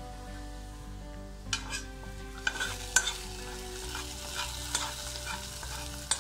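Hot coconut-oil tempering of mustard seeds, shallots and curry leaves sizzling as it is tipped from a small iron kadai into rasam in a clay pot. A metal spatula scrapes and clinks against the kadai, loudest about three seconds in.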